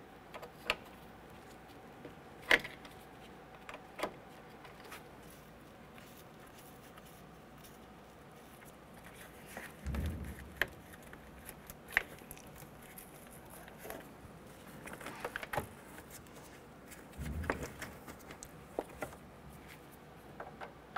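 Scattered faint metallic clinks of a wrench and ratchet on car battery terminal and hold-down nuts, with two dull thumps, one about halfway through and one later.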